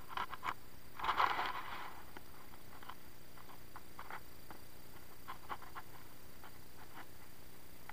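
Hands and feet scraping and patting against tree bark as a climber works his way up the trunk: scattered short ticks and one louder scrape about a second in, over a steady hiss.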